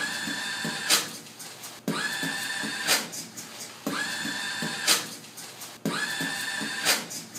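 Automatic paper towel dispenser's motor whirring in short steady bursts about every two seconds. Each whir is followed about a second later by a sharp hit, with low thumps between, making a looping beatbox-style rhythm.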